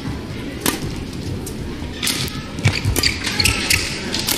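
Badminton rackets striking a shuttlecock in a fast doubles rally: a string of sharp cracks at uneven intervals, with players' feet shuffling on the court over a hall's steady background noise.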